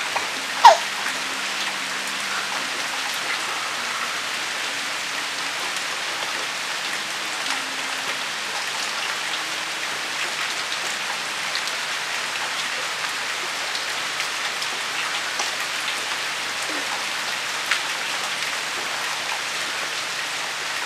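Steady hiss of rain falling on a surface, with a sharp click just under a second in and a smaller one near the end.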